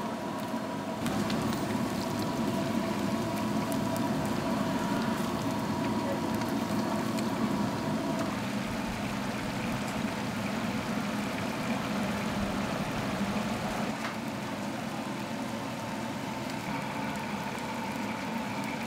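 Hot oil sizzling and bubbling steadily as battered skewers deep-fry in a large pan, over a faint steady hum.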